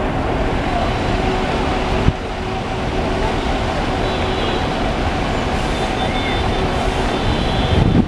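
Bus station din: bus engines running and traffic noise, a steady drone throughout, with a short knock about two seconds in.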